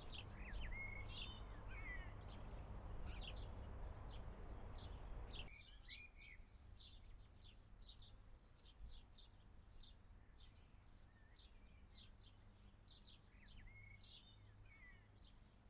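Small birds chirping and singing, with short high calls several times a second and a few warbled phrases. A steady background hiss runs under them and drops away sharply about five and a half seconds in.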